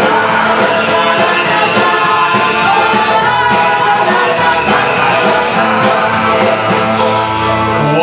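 A folk band playing live: banjo, guitars, double bass and drums, with voices singing over a steady beat of about two strokes a second.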